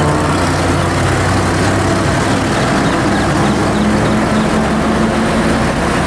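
Mitsubishi Fuso heavy truck's diesel engine running steadily as the lorry drives by, under continuous road and traffic noise.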